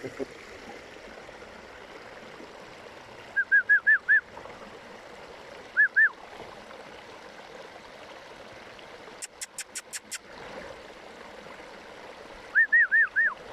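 Shallow stony stream flowing steadily. Over it come short, high chirping calls that rise and fall: a quick run of five about a quarter of the way in, a pair about halfway, and four more near the end. Around two-thirds of the way through there is a brief rapid series of sharp clicks.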